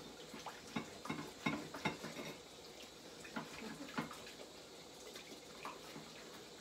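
Dishes and pans clinking and clattering at a kitchen sink, with water running faintly from the tap. The clinks come thick over the first few seconds and thin out after.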